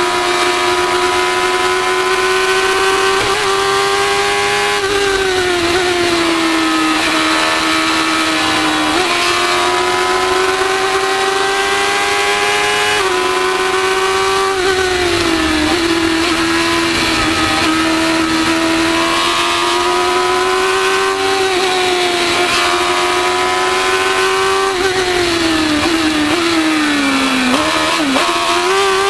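Formula 1000 race car's 1000 cc motorcycle engine running hard on track, heard from the onboard camera over wind rush. The note dips briefly at each of several gear changes, then drops and wavers through downshifts a few seconds before the end.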